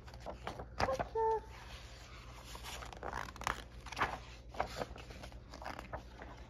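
Pages of a picture book being turned and handled: a string of soft paper rustles and flaps.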